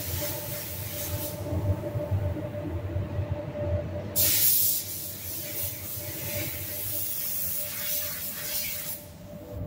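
Paint spray gun hissing in bursts as it sprays base coat: it stops about a second in, gives a short loud blast about four seconds in, then sprays again until near the end. Underneath is the steady low hum of the spray booth's ventilation.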